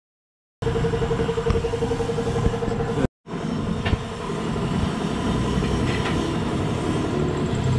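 Tire-changer machine running with a steady, pitched motor hum. The hum stops abruptly about three seconds in, and steady mechanical workshop noise follows with a few sharp clicks.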